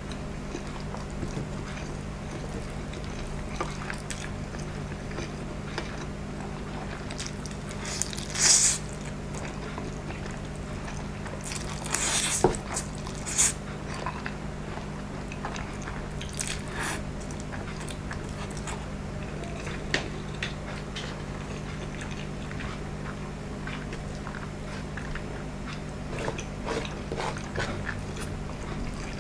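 Person eating instant noodles: chewing, with a few short loud slurps, the loudest about eight seconds in. A steady low hum runs underneath.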